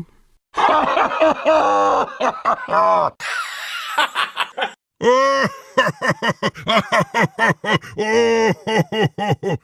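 Cartoon character laugh sound effects: a rapid run of ha-ha laughter, a breathy hissing stretch about three seconds in, then a second run of quick laughter starting about five seconds in.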